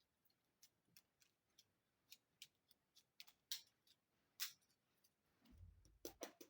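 Faint, irregular light clicks and taps of small toy pieces being handled and set in place, a few sharper ones in the middle and a soft thump near the end.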